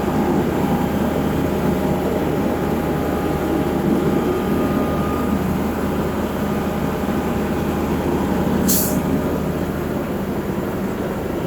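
Heavy diesel truck engine running steadily with a low rumble and a faint steady whine, on a site where a concrete pump truck and mixer trucks are working. A short sharp hiss cuts in about nine seconds in.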